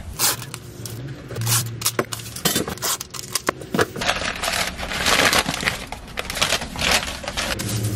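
Brown kraft packing paper being crumpled and rustled by hand, a dense, irregular run of sharp crackles.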